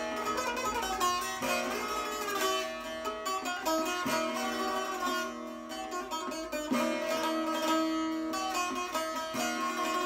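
Şeştar, a six-stringed long-necked lute, played solo in a free improvisation: quick plucked melody notes over steadily ringing open-string drones.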